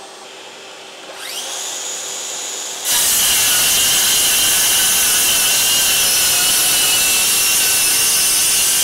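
Bosch GKS18V-25GCN 18 V brushless circular saw, on an 8 Ah ProFactor battery at speed setting 6. About a second in its motor spins up with a rising whine to a steady free-running pitch. Just under three seconds in the blade enters a triple stack of LP TopNotch OSB subfloor panel, and the saw cuts with a loud, steady whine under full load.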